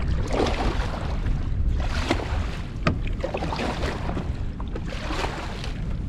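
Wind rumbling on the microphone and water lapping and splashing against a kayak on open, choppy water, with a few louder splashes and a single sharp click about three seconds in.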